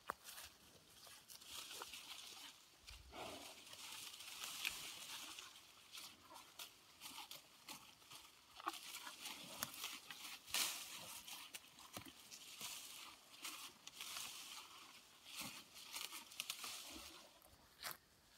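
Belted Galloway cow browsing on tree leaves: foliage rustling and leaves and twigs tearing in an uneven run of faint crackles and clicks.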